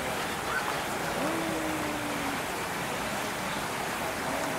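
Steady rushing background noise, even and unbroken, with a faint voice holding a single note for about a second, beginning about a second in.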